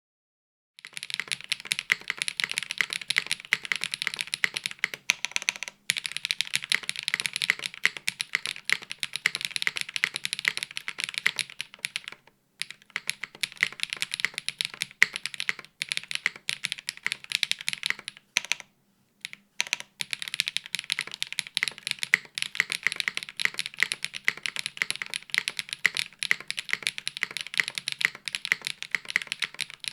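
Continuous fast typing on a Baionlenja Gehirn TKL mechanical keyboard with HMX Aperol linear switches and GMK keycaps on an unfoamed, top-mounted aluminium plate: a dense run of keystrokes broken by a few short pauses.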